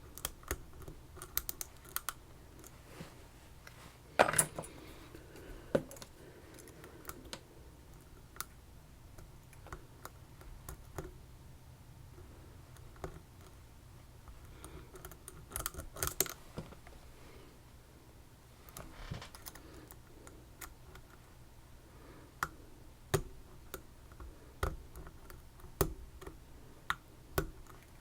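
Irregular small metallic clicks and taps of a pick and tension tool working inside an Assa Twin 6000 lock cylinder, with a few louder knocks about four seconds in and again around sixteen seconds.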